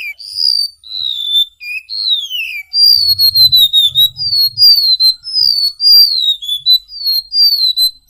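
Golden-bellied gerygone (remetuk laut) singing: a run of thin, high whistled notes, each sliding downward in pitch. The first few notes are longer falling sweeps; about three seconds in they quicken into a rapid string of short falling notes, two or three a second.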